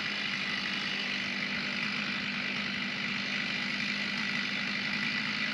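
An engine running steadily at constant speed, with an even hum under a higher hiss.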